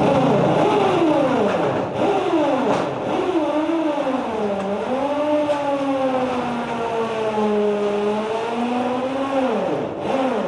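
A motor running at changing speed, its whine sliding slowly up and down in pitch throughout, over a rough noisy floor.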